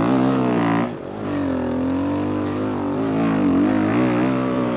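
Motocross bike engine heard on board while racing through rutted mud: revs rise and fall, cut back briefly about a second in, then are held fairly steady with small surges.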